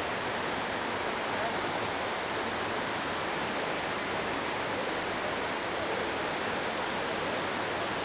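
Steady rush of a waterfall, an even hiss of falling water with no breaks.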